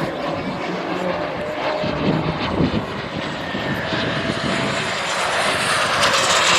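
Radio-controlled model jet's turbine heard in flight: a steady jet rush with a thin whine that drifts slightly up and down in pitch.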